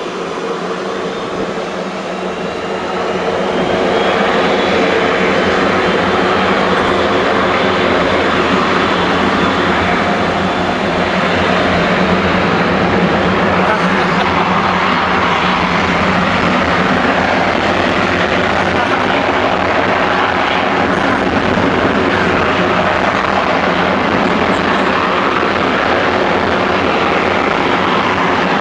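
McDonnell Douglas MD-80's two rear-mounted Pratt & Whitney JT8D turbofans at takeoff thrust, their jet blast heard from right behind the engines as a loud, steady roar. The roar builds over the first few seconds as the engines spool up, with a thin whine rising in pitch.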